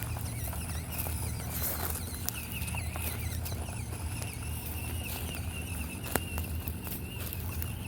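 Axial SCX24 micro crawler's small electric motor whining, rising and falling with the throttle, with scattered clicks and knocks of the tyres and chassis on dirt and stones, one sharp knock about six seconds in.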